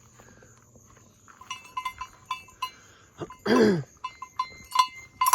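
A bell on a goat's collar clinking in quick irregular strikes as the goat moves, with one loud goat bleat about three and a half seconds in that falls in pitch.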